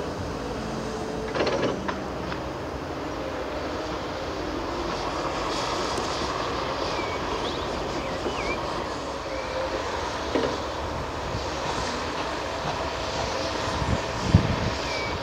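Heavy diesel machinery running steadily: a Fendt 822 Vario tractor pulling a dump trailer, then a Caterpillar 330F excavator digging. A few short knocks from the work, the loudest near the end.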